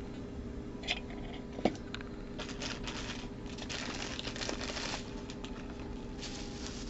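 Plastic packaging crinkling and rustling in bursts, with a couple of light clicks early on, as a Funko Soda can is opened and its vinyl figure unwrapped.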